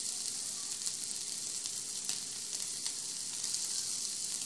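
Bacon sizzling and crackling in oil in a small nonstick frying pan, a steady hiss with scattered pops.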